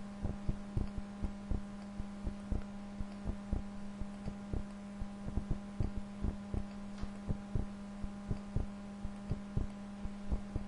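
Steady low electrical hum with irregular soft low thumps, about two or three a second.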